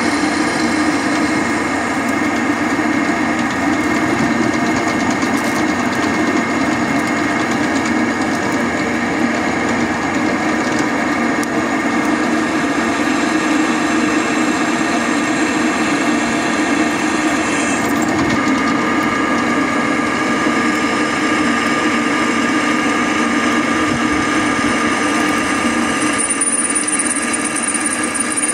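Electric drill running steadily as a twist bit bores through the steel tang of a machete, cutting curled chips, to make the handle holes.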